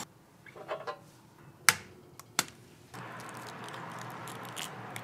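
Cooking on a fish-shaped bread (bungeoppang) iron: a few light ticks, then two sharp taps about two seconds in, followed from about three seconds by a steady sizzling hiss with small clicks.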